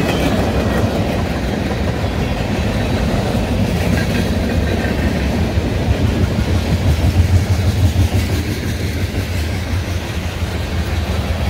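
Freight train of loaded tank cars and boxcars rolling past close by: a steady rumble of steel wheels on the rails.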